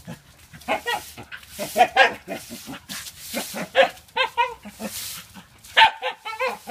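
Shiba Inu growling and yapping in short bursts, over and over, as it plays at a push broom.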